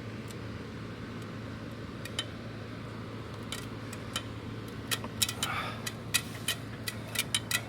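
A steady low hum with scattered light clicks and taps, which come more often in the second half.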